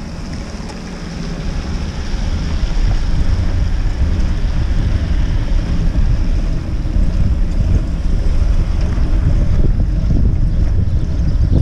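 Wind rumbling on a GoPro microphone on a moving cargo bike, with the hiss of its tyres on wet, slushy pavement. It grows louder about two seconds in and then stays steady.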